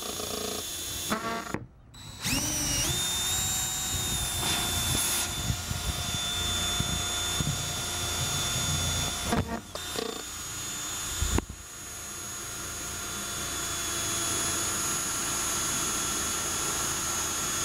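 Power drill boring through the plastic hinge of a trash can lid with a twist bit, the motor whining steadily. It stops briefly about two seconds in, then spins up again with a rising whine, and dips briefly about halfway through.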